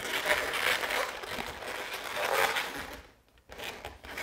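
Inflated latex balloons rubbing against each other as a small twisted-balloon beak is tied onto a Quick Link balloon, a crinkly handling sound with a short break about three seconds in.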